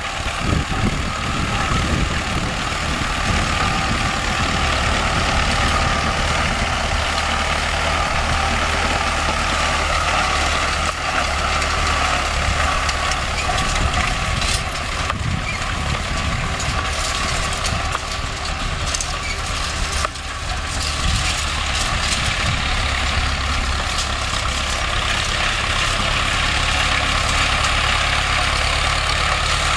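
Vladimir T-28 tractor running steadily under load with the air-cooled diesel engine from a T-40, pulling a wheel rake through hay. The loudness dips briefly about two-thirds of the way through.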